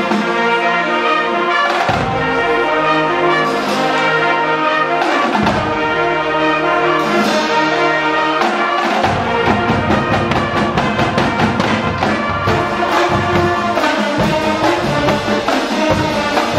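High school marching band playing loudly: trumpets, trombones, saxophones, clarinets and flutes over a bass drum. Long held brass chords come first, punctuated by single drum strokes; after about nine seconds the drums take up a quicker, steady beat.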